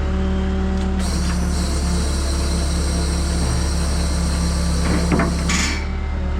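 Hino rollback tow truck's diesel engine held at raised revs to power the flatbed's hydraulics, running steadily, with a high hiss from about a second in until near the end and a few short knocks about five seconds in.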